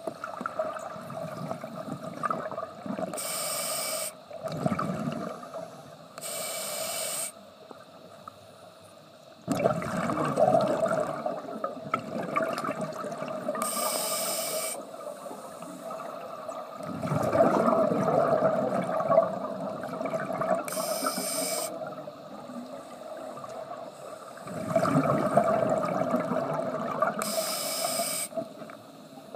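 Scuba diver breathing underwater through a regulator: five short hissing inhalations, each followed by a longer rush of exhaled bubbles. A faint steady hum runs underneath.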